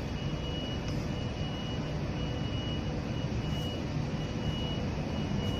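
Steady drone of running machinery with a low hum, and a faint high-pitched whine that keeps cutting in and out.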